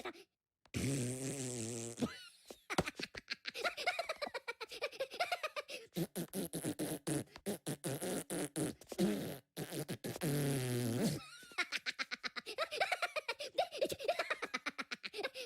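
Minions, the high-pitched cartoon characters, laughing in rapid, chattering bursts, broken by two longer held sounds, about a second in and about ten seconds in.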